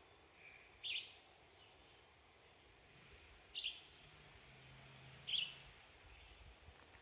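Quiet rain-forest ambience: a bird gives a short chirp four times, roughly every two seconds, over a faint, steady, high-pitched drone.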